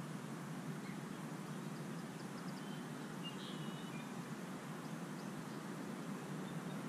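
Steady outdoor ambient noise, with a few faint, short, high bird chirps scattered through it.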